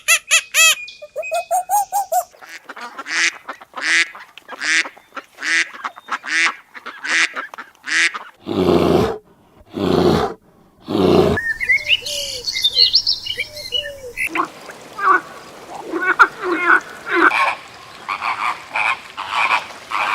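Several different animal calls in quick succession. First come rows of short repeated calls, then two long, low, loud calls, then scattered higher chirps in the second half.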